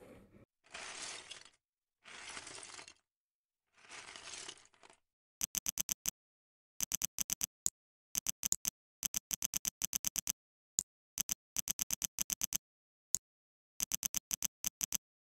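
Three short rustling noises as the box is opened and unpacked, then quick runs of sharp plastic clicks, LEGO bricks snapping together, several clicks at a time with short gaps between runs.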